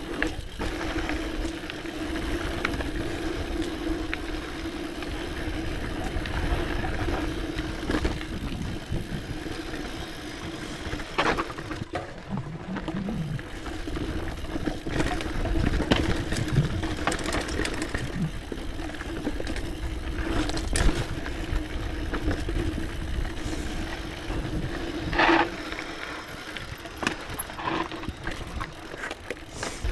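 Scott Genius mountain bike running fast down a dry dirt singletrack: knobby tyres rolling on dirt under a low rumble, with a steady hum and a few sharp knocks and rattles as the bike hits bumps.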